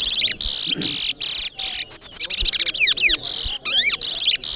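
Towa-towa (large-billed seed-finch) singing in a song contest: a fast run of short, high whistled phrases and chirps, one after another with only brief breaks.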